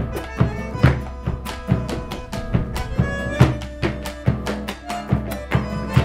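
Malambo zapateo: boots striking a wooden dance board in quick, irregular volleys of sharp stamps and taps, several a second. Under them runs Argentine folk music with a string accompaniment.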